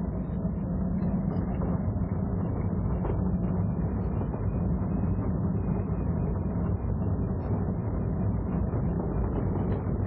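Inside the cabin of a Mazda RX-7 FD driven slowly: a steady bassy rumble with constant rustling and shuffling noises from the rear suspension. The owner blames the noise on the Tokico Illumina rear shock absorbers, whose top mounts sit right behind the driver, and on aftermarket pillow-ball bushings.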